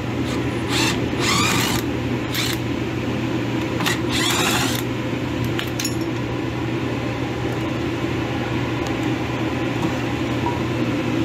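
Cordless drill-driver whirring in two short bursts, about a second in and about four seconds in, backing out the screws of a stainless prep table's lower front panel, with scattered clicks and clunks of metal being handled. A steady low machine hum runs underneath.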